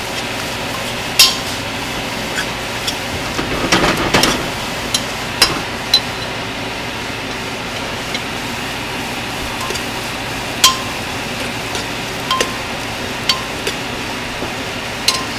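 Onion-tomato masala frying in a metal pot with a steady sizzle, while a metal spoon stirs it and clinks sharply against the pot every few seconds, with a quick run of knocks about four seconds in.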